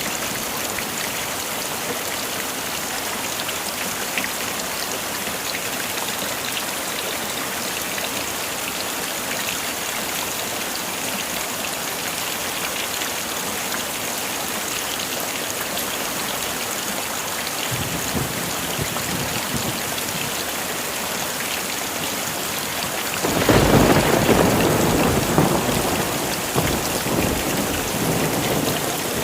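Heavy rain falling steadily in an even hiss. A faint low rumble of thunder comes about two-thirds of the way in, then a louder roll of thunder near the end that dies away over several seconds.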